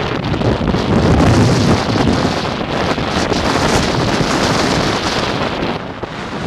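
Strong, gusty wind from an approaching severe thunderstorm blowing across the camera microphone. It makes a loud, rushing buffeting noise that is strongest about a second in and eases a little near the end.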